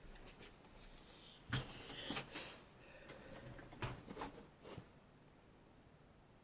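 Faint handling noises as a small wooden board is picked up and moved about on a cutting mat: a sharp knock about a second and a half in, a short cluster of clicks and scrapes just after, and another knock and a couple of clicks around four seconds in.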